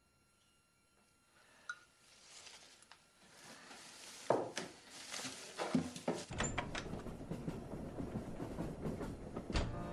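Straw packing rustling, with clicks and knocks, as a wicker hamper is unpacked. A steady low rumble joins about six seconds in.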